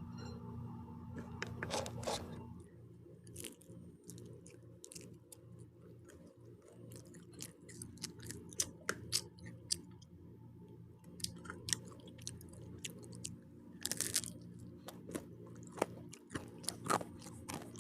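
Person chewing and biting pizza close to the microphone: a run of many short, sharp crunches and clicks, with one longer, louder crunch late on.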